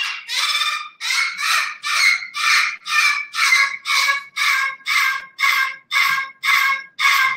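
Parrot screaming over and over, harsh calls about two a second. The scream is a sign of anxiety.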